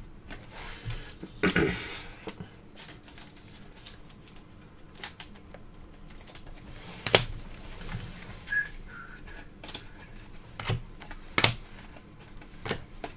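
Baseball trading cards being handled and flipped through by hand, with scattered sharp clicks and taps a second or more apart as cards are moved and set down.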